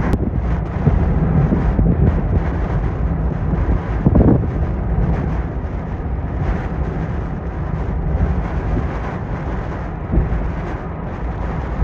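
Hurricane wind and heavy rain buffeting a vehicle driving on a soaked highway, with a steady low noise of wind, rain and tyres on wet road. A heavier thump comes about four seconds in, and a smaller one near the end.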